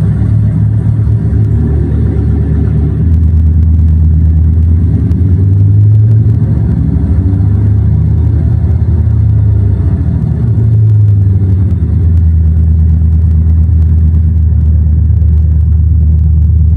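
RC model aircraft engine sound module playing its simulated twin-engine B-25 bomber sound through its speaker: a loud, low, steady engine rumble whose pitch rises for a while around the middle and then settles back.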